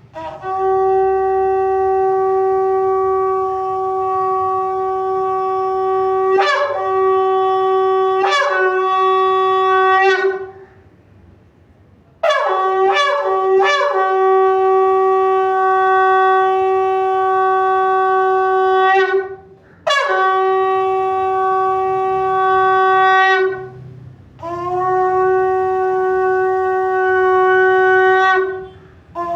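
Shofar blown in long, steady, loud blasts on one pitch. Each blast starts with an upward slide, and there are brief breaks in the tone. After a short pause about ten seconds in comes a quick run of short rising notes, then three more long blasts.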